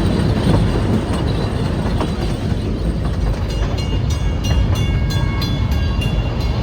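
Puffing Billy narrow-gauge steam train running along the track, heard from on board as a steady low rumble of the carriage. From about halfway a fast rhythmic ringing, about four strokes a second, joins in.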